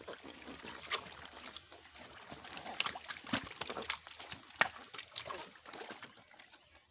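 Live catfish squirming and slapping against each other in a net-lined basin of water as a hand grabs through them, with irregular wet slaps and small splashes.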